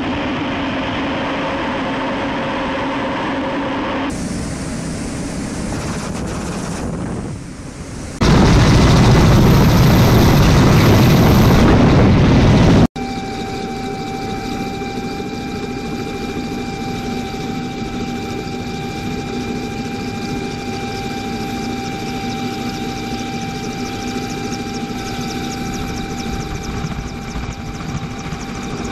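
Military jet aircraft in flight, a steady engine noise; about eight seconds in a much louder rushing noise takes over for about five seconds. It cuts off suddenly and gives way to a steady machine whine with a couple of held tones.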